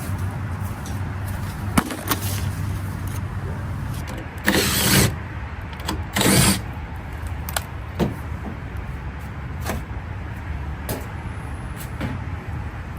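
Steady low hum of running heat pump equipment, with scattered clicks and knocks of handling, and two short bursts of scraping noise about four and a half and six seconds in.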